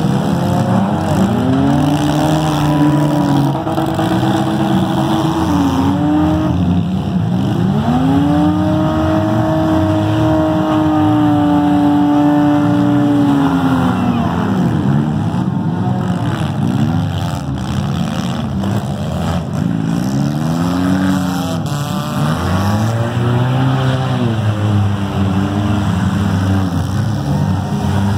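Demolition derby car engines revving hard, several at once, their pitch repeatedly climbing, holding and dropping as the cars push and ram one another. One engine holds a high rev for several seconds in the middle.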